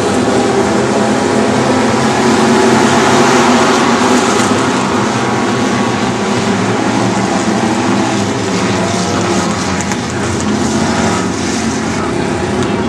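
Several dirt-track Super Stock race cars' engines running together around the oval, a loud, steady, layered engine noise that swells slightly about three seconds in as the pack goes by.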